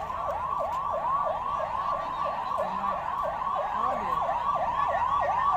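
Emergency vehicle siren in a fast yelp, its pitch rising and falling about four times a second without a break.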